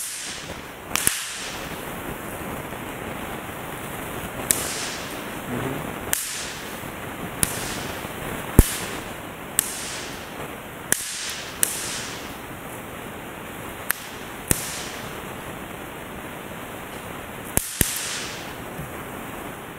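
Snap poppers (bang snaps) cracking one at a time at irregular intervals, about a dozen sharp pops, some in quick pairs, over a steady hiss.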